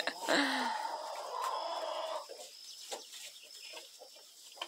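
Chickens clucking, loudest in a burst over the first two seconds and then fainter, with a few short sharp knocks.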